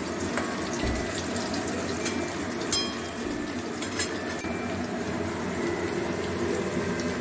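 Whole boiled potatoes deep-frying in plenty of oil in an aluminium kadai, the oil sizzling and bubbling steadily. A metal spatula turning them clicks sharply against the pan twice.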